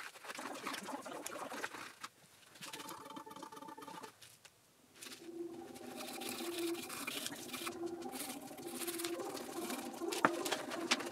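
Hand scrubbing and wiping on the intake-port gasket face of a cylinder head: scratchy, uneven rubbing with short pauses. About halfway a steady mechanical hum comes in underneath, and there is one sharp click near the end.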